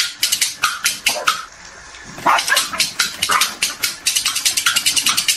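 Corgis barking in a fast, sharp series, about six or seven barks a second, with a short pause about a second and a half in.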